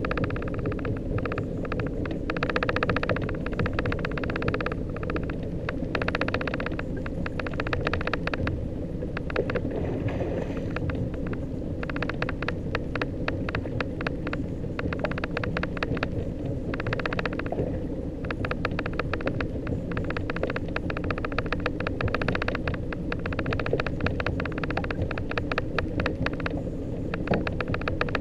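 Small outboard motor running steadily at low speed, a constant drone with a rough hiss over it.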